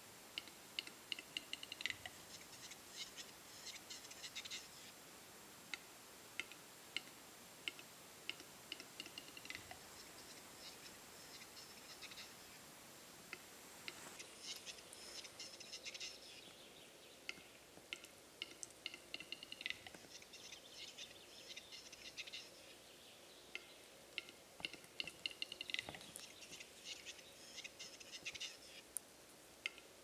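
Displaying male capercaillie song: runs of rapid dry clicks and scratchy phrases, repeated every few seconds.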